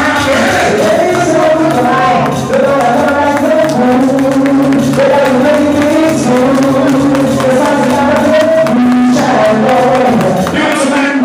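Recorded song with sung vocals over a steady bass line, played loud through a DJ's PA speakers.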